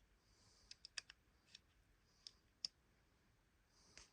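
Faint, scattered clicks and taps of hard plastic as a plastic action figure is handled and fitted onto its plastic stand, about half a dozen sharp ticks, the strongest about two and a half seconds in.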